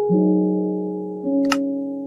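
Background music of slow, held keyboard chords, each fading slowly, with a chord change just after the start and another about 1.3 seconds in. A single short click sounds about 1.5 seconds in.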